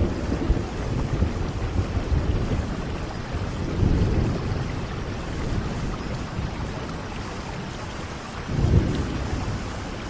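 Steady rain falling during a thunderstorm, with low rumbles of thunder swelling up twice, about four seconds in and again near the end.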